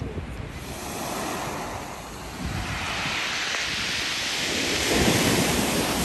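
Sea surf breaking on a pebble beach, a wave swelling louder from about halfway through, with wind rumbling on the microphone.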